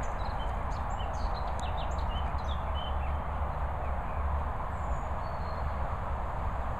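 Birds chirping in short, quick high notes over a steady outdoor background with a low rumble; the chirps cluster in the first three seconds, with a couple more about five seconds in.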